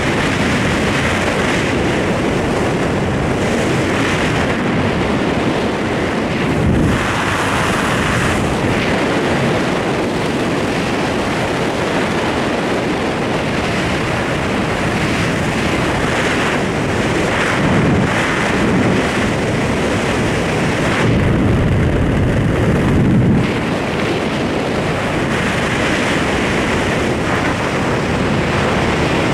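Wind rushing steadily over a body-mounted camera's microphone during a parachute descent, swelling into louder gusts several times.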